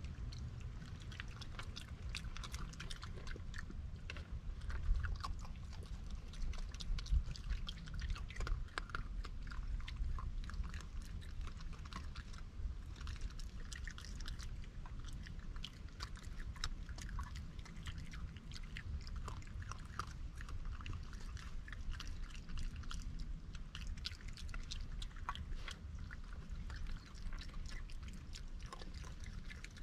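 Raccoon chewing and crunching dry kibble and peanuts close to the microphone: a continuous run of small, irregular crunches and smacks.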